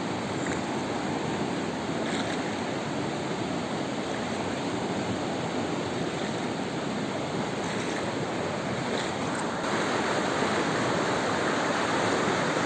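Steady rush of a fast-flowing river in flood after heavy rain, growing louder about ten seconds in.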